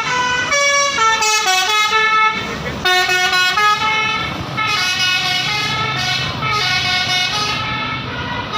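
Bus 'telolet basuri' melody horn playing a quick tune of short stepped notes, with a brief break just before three seconds in. A bus engine rumbles underneath.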